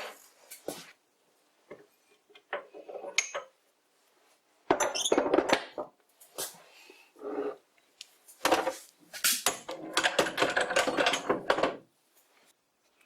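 Metal lathe parts and tools clinking and clanking as they are handled, in irregular bursts with quiet gaps between; the lathe itself is not running.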